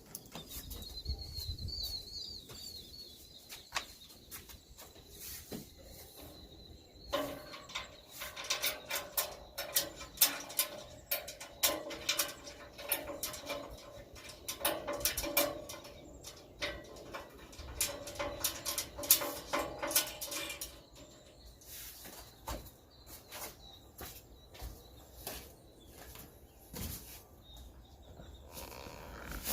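Clicking and clinking of metal hardware being handled as a hex bolt and washer are worked out of a grill handle and fitted to the lid. The clicks come thick from several seconds in and thin out in the last third. A faint high wavering tone runs through the first several seconds.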